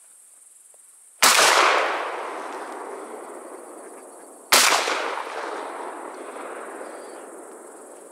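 Two shotgun shots about three seconds apart, fired at a duck in flight, each followed by a long echo off the surrounding forest that fades over a few seconds. The first shot already brought the duck down, so the second was not needed.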